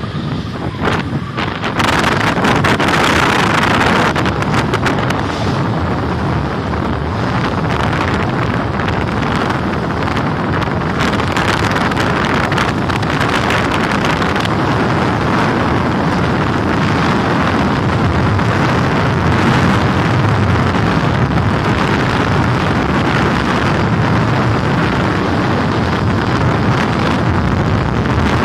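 Wind buffeting a microphone moving at skating speed, over the rolling hiss of inline speed-skate wheels on wet asphalt.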